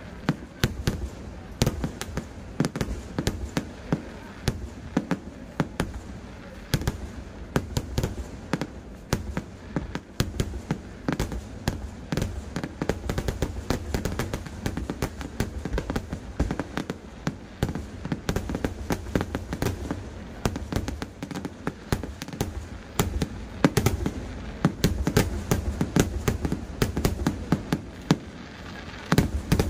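Temple festival fireworks (vedikettu): an unbroken barrage of firecracker bangs and crackling, several reports a second, going on without a pause.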